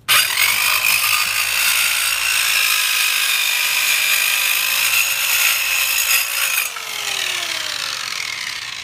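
TACKLIFE TCS115A compact circular saw starting and cutting through a wooden board with a loud, steady whine. About six and a half seconds in the cut ends and the motor winds down, its pitch falling as it fades.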